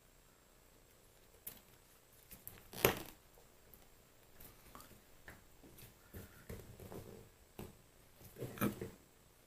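Small metal lathe-apron parts being handled and fitted by hand: scattered light clicks and knocks of metal on metal, with the loudest knock about three seconds in and a short cluster of knocks near the end.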